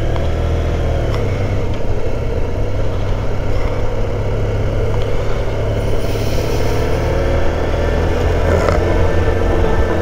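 Touring motorcycle riding through a roundabout: a steady low engine and wind rumble that grows a little louder near the end as the bike pulls away.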